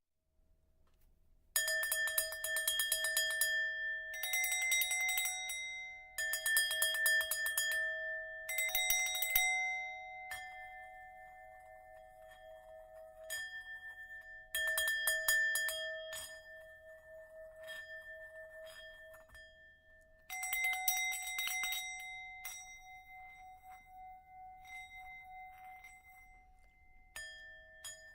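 Metal bells rung in about six bursts of rapid strokes, each burst leaving several steady pitches ringing and slowly fading.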